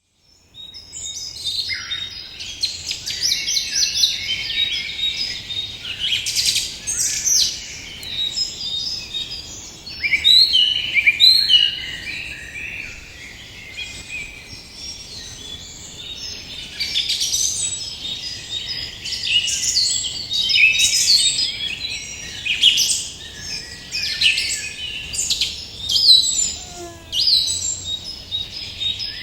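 A dense chorus of many songbirds chirping and singing over one another without a break.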